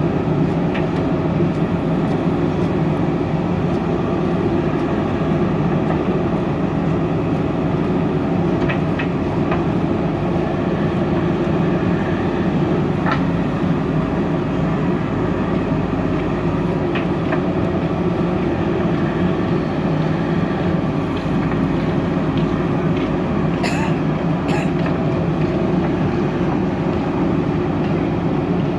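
JCB 3DX backhoe loader's diesel engine running steadily under working load, with a few short metallic clinks from the machine.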